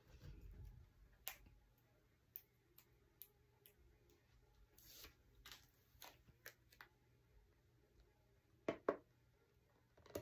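Near silence broken by scattered faint clicks and small taps of hands handling sticker paper and a cardboard gift box on a metal worktable, with two louder clicks about nine seconds in.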